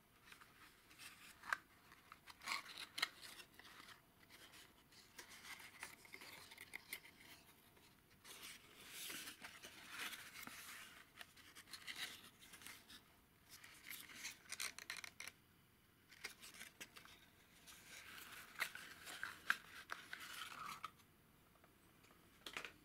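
Faint handling of a small cardboard valve carton: dry scraping and rustling of card with sharp little clicks, in several stretches with short pauses, as the end flap is pulled open and the glass valve is slid out.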